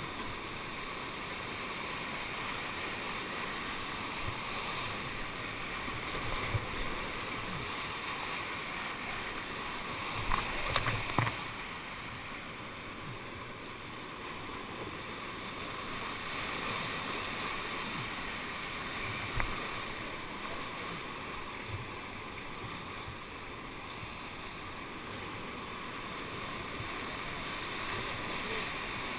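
Churning whitewater in a river hole around a surfing kayak: a steady rush of water close by, with a few short louder splashes about a third of the way through and once more about two-thirds through.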